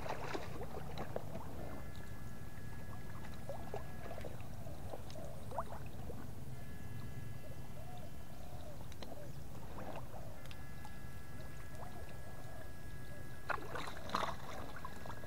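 Steady low sloshing of water with a few short splashes, as people move through a pond while electrofishing. A faint high steady whine comes and goes three times.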